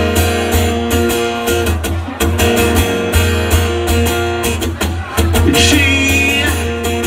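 Amplified acoustic guitar strummed in steady chords through a live instrumental passage.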